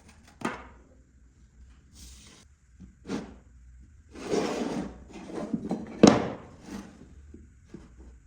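Wood being handled: a few sharp wooden knocks, the loudest about six seconds in, with short scraping or sliding sounds between them, the longest lasting nearly a second.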